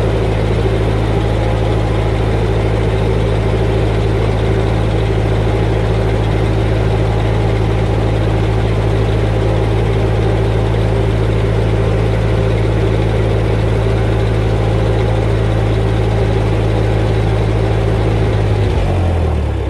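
1956 Ferguson TO35 tractor engine idling steadily, run to move the fresh gear oil around the transmission. It shuts off near the end, dying away over about a second.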